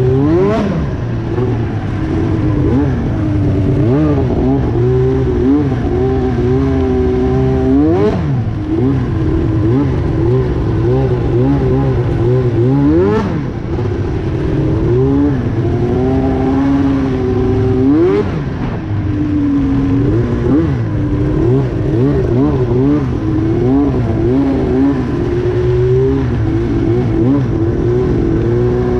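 Arctic Cat Crossfire 1000R snowmobile's two-stroke twin engine running through a loud GGB aftermarket exhaust can. The revs rise and fall with the throttle, with four sharp rev-ups along the way.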